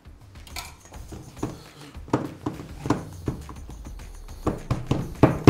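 Silicone spatula mixing mashed potato and cheese filling in a stainless steel bowl: a run of irregular knocks and taps against the bowl.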